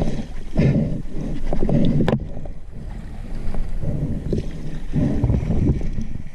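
Water splashing and churning as a large speared catfish thrashes at the end of a harpoon line, in irregular surges. A single sharp knock about two seconds in.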